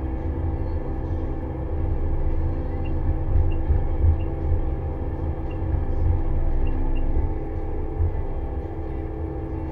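Pellenc Optimum grape harvester heard from inside its cab while harvesting along a vine row: the engine and machinery run with a steady low drone and a hum of several steady tones, with faint short high ticks now and then.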